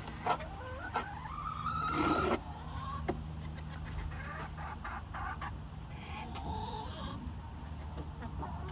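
Backyard hens clucking and calling, with one louder, drawn-out call about two seconds in and a few sharp clicks between the calls.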